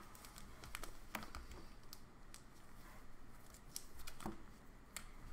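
Light clicks and soft rustling of hands handling a trading card in clear plastic card holders, with scattered sharp clicks of plastic on plastic.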